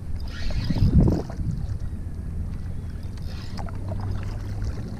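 Wind rumbling on the microphone over water moving around a small paddled boat, with one louder thump about a second in.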